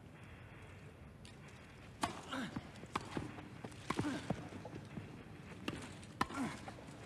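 Tennis balls struck by rackets in a rally on a grass court: sharp pocks about a second apart, starting about two seconds in after a hush, with short vocal sounds from the players in between.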